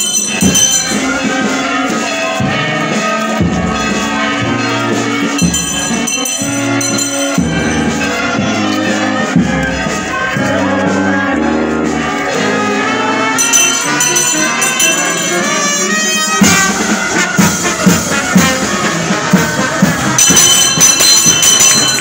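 Brass band playing processional music, with long held notes that change pitch every second or two.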